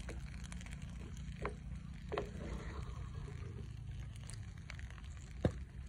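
A wooden spoon stirring thick curry in a clay pot, with a few sharp clicks and knocks of the spoon against the pot, the loudest about five and a half seconds in, over a steady low rumble.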